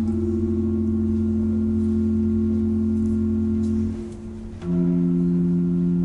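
Pipe organ playing slow, held chords. The chord fades about four seconds in, and a new, lower-pitched chord enters half a second later.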